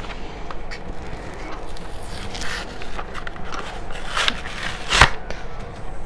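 Plastic blister pack and cardboard backing of a carded Hot Wheels car being crinkled and torn open by hand, in short scratchy bursts, with a sharp snap about five seconds in as the pack gives way.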